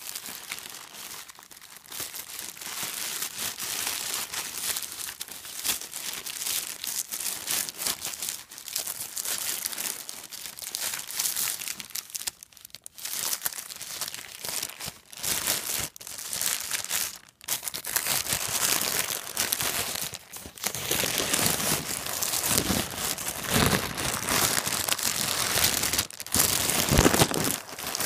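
Plastic packaging crinkling and rustling as a backpack is pulled out of its plastic mailer bag and handled, in irregular bursts that grow louder in the last third.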